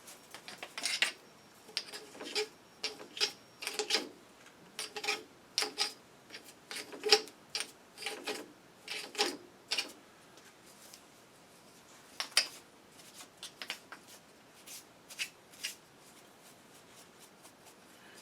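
A 1-inch chip brush sweeping aluminum swarf off a Logan 920 metal lathe: short, irregular scratchy strokes, sometimes several a second, with a brief lull in the middle.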